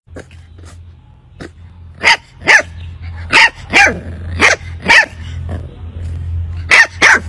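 Puppy yapping in short, high barks: a few faint ones at first, then about eight louder yaps from about two seconds in, over a steady low hum.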